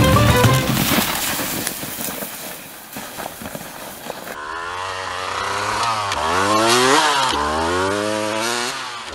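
Music fades out over the first few seconds. Then a Honda CR250 two-stroke dirt bike engine revs up and down, its pitch swinging low and high a couple of times.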